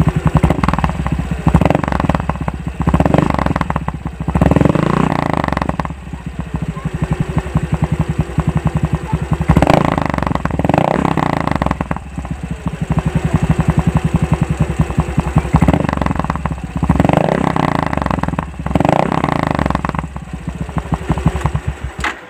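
Yamaha Mio i 125 scooter's single-cylinder four-stroke engine running through an Organ Sport V3 'chicken pipe' aftermarket exhaust freshly repacked with new fiber matting, idling with repeated short throttle blips that are kept well short of full revs.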